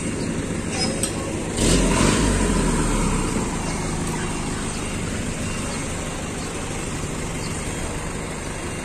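Street traffic noise: a steady rush of vehicles. About two seconds in, a louder swell with a deep rumble rises and fades over a second or so.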